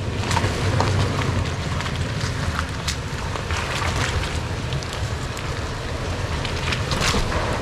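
Off-road vehicle crawling slowly over a rocky trail obstacle: a low engine rumble with scattered clicks and knocks of stones and rock under the tyres and chassis.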